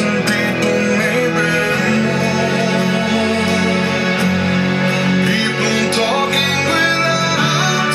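A song with singing and guitar played through a car door audio system, with 1-inch neodymium compression drivers on horn flares carrying the highs above door mid-bass speakers.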